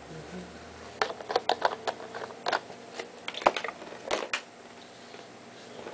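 Plastic bottles and a plastic tub being handled: a quick run of sharp clicks and knocks, lids and containers tapping, from about a second in until past four seconds.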